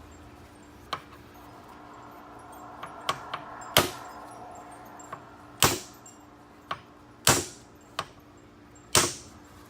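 Hammer blows on steel, about eight sharp, irregularly spaced strikes, driving a universal joint's bearing cap out of a drive shaft yoke.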